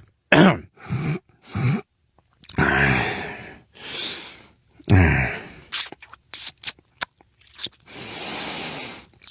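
A man's non-speech vocal noises: several short grunts falling in pitch, a longer falling groan, and long breathy exhales, with a few sharp clicks between them.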